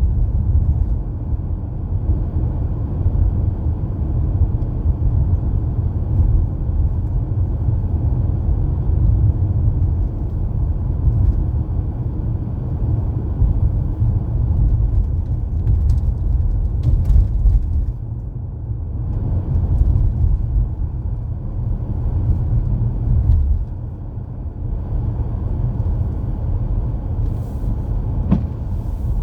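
Steady low rumble of a car driving on a snowy road, engine and tyre noise heard from inside the cabin, easing slightly a couple of times, with a few faint clicks.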